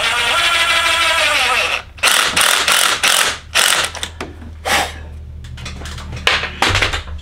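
Cordless DeWalt drill drilling: the motor runs with a steady whine for nearly two seconds and slows down at the end, then gives several short harsh bursts as the bit works into the part.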